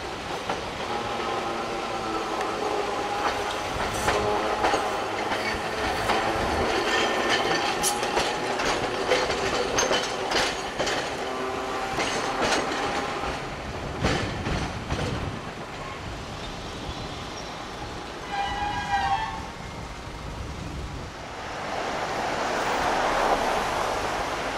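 Hiroshima Electric Railway 900-series streetcar taking a curve, with wavering wheel squeal and rapid clicks as the wheels run over the rail joints and crossings. A brief horn-like tone sounds about 18 seconds in, and a road vehicle passes near the end.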